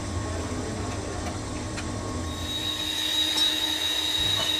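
Steady low machine hum, joined about halfway through by a high, steady squealing whine.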